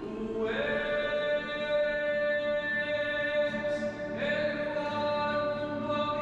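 A choir singing, holding long sustained chords; a new chord comes in about half a second in and another about four seconds in.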